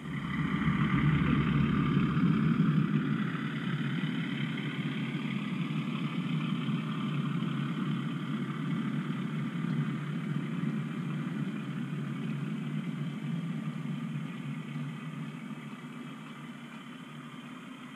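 OO gauge model goods train of tank wagons rolling past close by: a steady rumble of wheels on track with a faint whine, loudest in the first few seconds and fading near the end as the train moves away.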